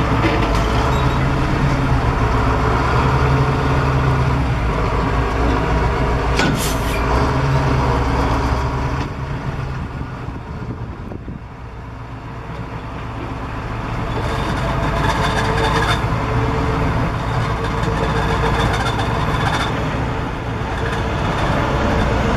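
The engine of a 1989 GMC digger derrick truck running steadily. It is loud for the first several seconds, eases off around the middle and builds again. There is a brief hiss about six seconds in.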